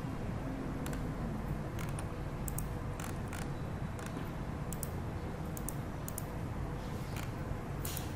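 About a dozen sharp clicks of a computer mouse at irregular intervals, over a steady low hum.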